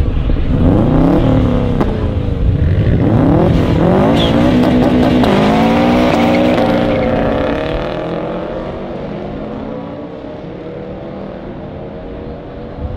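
Subaru flat-four engines of an Impreza WRX and a Forester revving hard and accelerating in a drag race, the engine note rising and falling repeatedly. Over the last few seconds it fades as the cars pull away.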